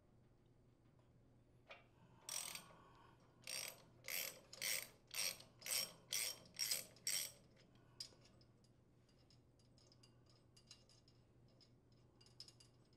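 Hand socket ratchet clicking as it loosens the impeller's center mounting bolt, in about eight strong, evenly spaced ratcheting strokes, roughly two a second. About eight seconds in they give way to lighter, quicker clicking as the loosened bolt is turned out by hand.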